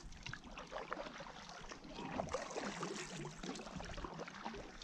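Double-bladed kayak paddle stroking through calm water, with small splashes and water dripping and trickling off the blades.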